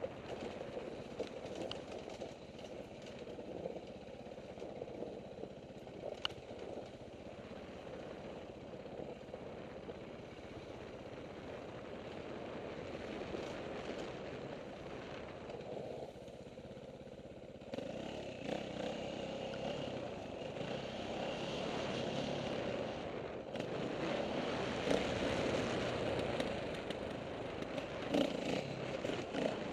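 KTM 450 XC-W single-cylinder four-stroke dirt bike engine running while riding a rough dirt trail, with rattling from the bike over the bumps. It gets louder from about two-thirds of the way through.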